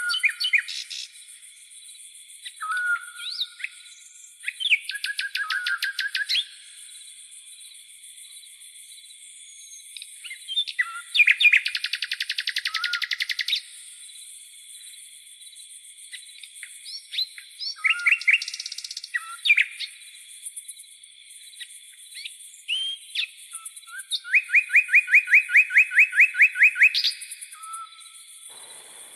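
Birds singing in a tropical forest: short whistled calls and several fast trills of rapidly repeated notes, coming every few seconds, over a steady high-pitched drone of crickets.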